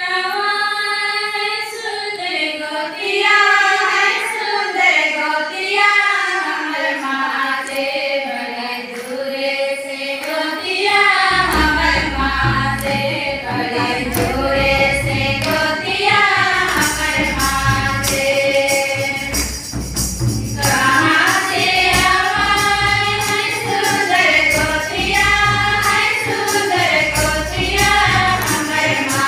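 A group of women singing together in unison into microphones, unaccompanied at first. About eleven seconds in, a deep, beating accompaniment joins in beneath the voices.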